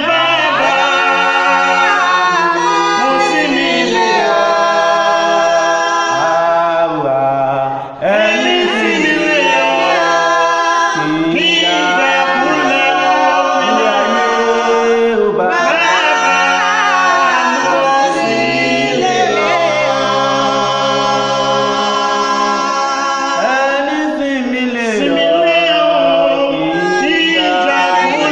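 A small mixed group of men and women singing a Yoruba gospel song in harmony, unaccompanied. The singing breaks off briefly about eight seconds in.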